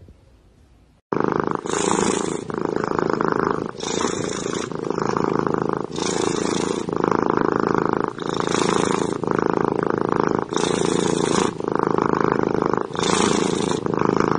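Domestic cat purring loudly, starting about a second in, in an even cycle that changes with each breath roughly every two seconds.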